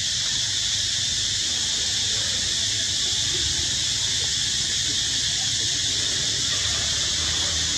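Steady, high-pitched insect drone, a chorus of cicadas in the forest canopy, holding an even level throughout.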